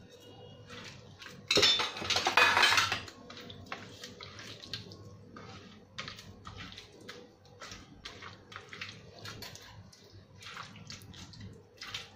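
Steel bowl clattering and scraping on a steel plate about two seconds in, then hands rubbing masala into wet raw mandeli fish on the steel plate: wet squishing with many short taps and scrapes against the metal.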